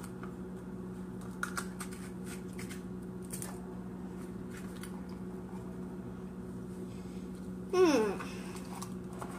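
Faint scattered clicks of slime being handled over a steady low hum. About eight seconds in, a short, sharply falling vocal groan of disgust at the slime's smell.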